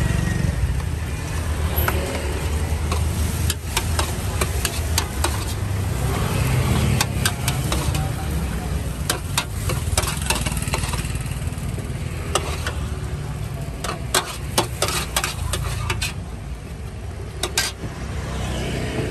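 Metal spatula scraping and clicking against a large steel wok as noodles are stir-fried and scooped out, with frying sizzle, over a steady low rumble.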